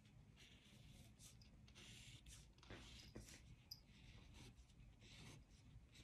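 Faint scratching of a Sharpie permanent marker drawing short lines on paper, a quick stroke about every half second.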